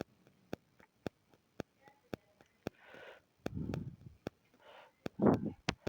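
A series of light, sharp clicks at an irregular pace, about two a second, with a few soft breaths in between.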